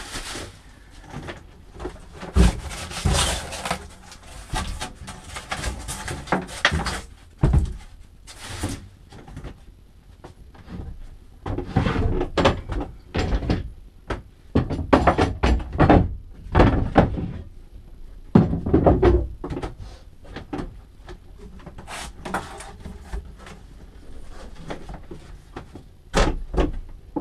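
A fiberglass icebox liner being worked loose and lifted out of its wooden cabinet: irregular knocks, thumps and scraping of fiberglass against wood, in clusters with short pauses.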